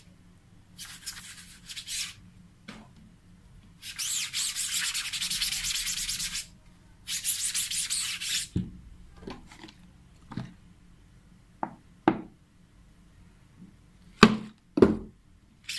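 A cloth rag scrubbing a screen-printing mesh with solvent, in three long rubbing passes, to wash the printed PVC matt ink out of the screen. It is followed by a scatter of short knocks and taps, the two loudest near the end.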